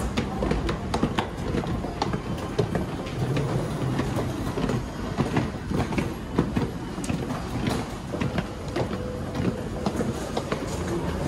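A train running in an underground station: a steady low rumble with frequent small clicks and knocks.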